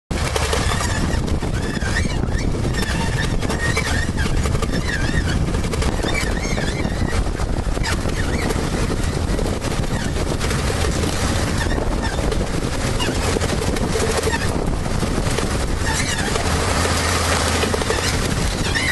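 Many bird calls, like a flock of poultry, wavering through a dense, steady din.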